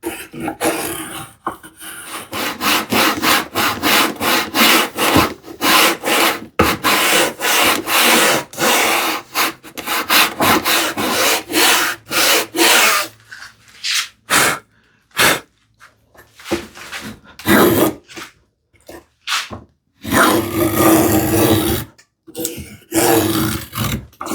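Groove being cut by hand in a wooden strip with saw and chisel: a long run of quick, even strokes, about two or three a second, then slower, irregular strokes with short pauses.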